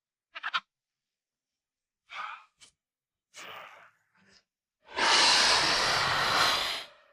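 Film velociraptor vocal sound effects: a few short breathy chirps and snorts with silent gaps between them. Then a long, loud, breathy hissing call of about two seconds near the end.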